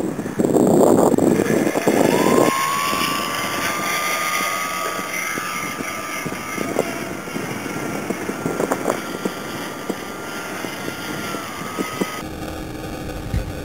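RC model plane's motor spooling up about two seconds in to a steady high whine, which holds with small shifts in pitch. Wind buffets the microphone before it starts. Near the end the sound changes suddenly to a lower steady tone.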